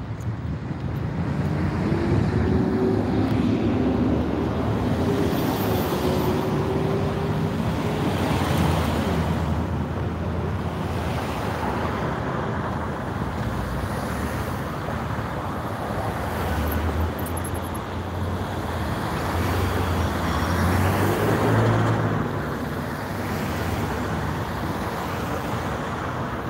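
Steady road traffic noise from passing cars, with one louder vehicle passing about twenty seconds in.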